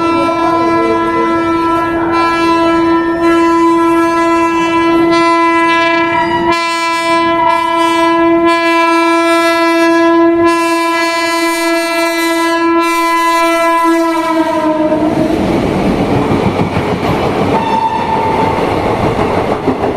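An Indian Railways electric locomotive's horn sounds one long unbroken blast of about fourteen seconds, dropping slightly in pitch as it ends, as an express train passes at speed. The coaches then rush through with the clickety-clack of wheels over rail joints.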